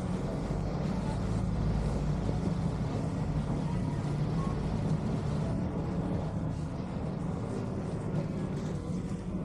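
Vaporetto (Venetian waterbus) engine running steadily as the boat cruises: a low, even drone with a rushing hiss above it.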